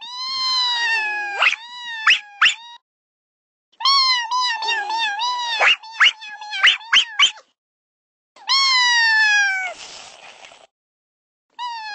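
High, wavering cat-like meows, each sliding down in pitch, in three runs broken by short silences. Near the end of the third run there is a brief hiss.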